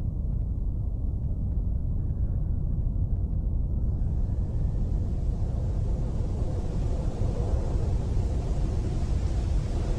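Low, steady rumbling drone with no speech. From about four seconds in, a rushing, wind-like hiss swells up over it and keeps growing.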